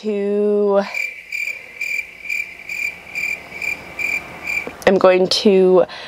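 Cricket chirping, about three chirps a second for close to four seconds, then cutting off abruptly: the classic 'crickets' sound effect edited in over an awkward pause. A drawn-out 'uhh' comes before it.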